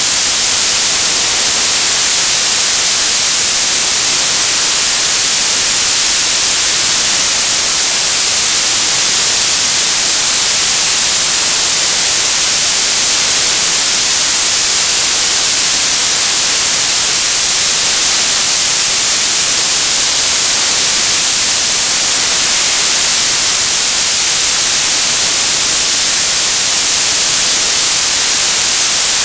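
Television static: a steady, loud hiss of white noise from an untuned TV, strongest in the highs and unchanging throughout.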